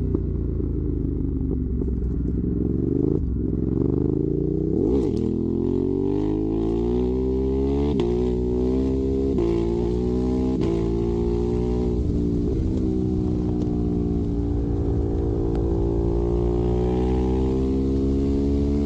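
Ducati Monster 821's L-twin engine running through a Termignoni exhaust, accelerating through the gears. The pitch climbs and drops back briefly at each of several upshifts, then holds a steadier note that slowly rises and falls.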